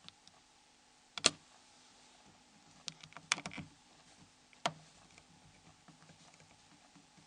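Small sharp plastic clicks of a Nokia N73's cover snap clips unlocking as an opening tool slides along the casing edge. There is a quick double click about a second in, a cluster of clicks around three seconds, and one more click near five seconds.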